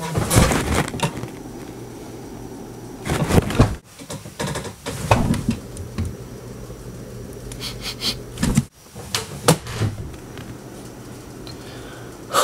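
Bedclothes rustling and bumping as a person moves about on a bed, in several separate bursts, over a steady low hum.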